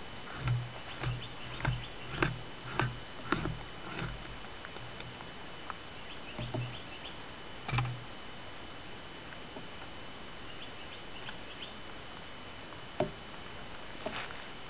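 A blade scraping flesh and membrane off a raw deer hide in short, even strokes, one about every half second for the first four seconds, then a few single strokes spaced out with pauses between.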